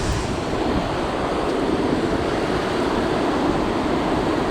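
Steady rushing of fast-flowing river water, an even wash with no breaks.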